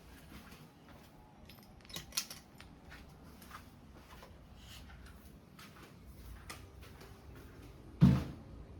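Ceiling fan running with a faint low hum, under scattered light clicks and ticks, two sharper clicks about two seconds in, and one loud dull thump near the end.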